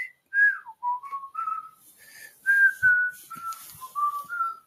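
A person whistling a slow, wandering tune, a string of short held notes with small slides between them, about two notes a second.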